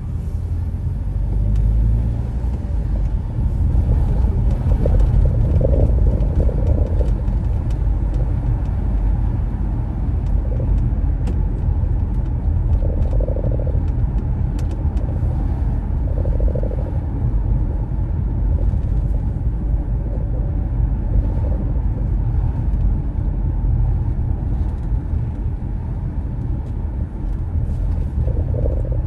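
Car being driven: a steady low rumble of engine and tyre noise.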